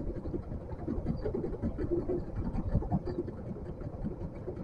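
Faint rustling and scratching of a nylon cast net being handled to free a caught fish, over a low, uneven rumble.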